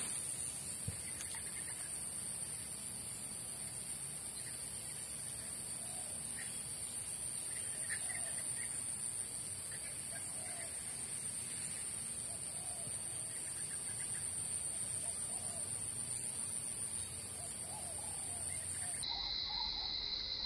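Open-air marsh ambience: a steady high-pitched drone with faint bird calls repeating about once a second. Near the end the high drone cuts off and a lower one carries on.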